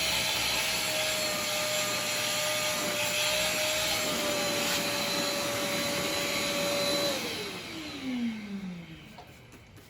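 Wet-and-dry vacuum cleaner running with a steady whine. About seven seconds in it is switched off, and its motor winds down in a falling pitch and fades.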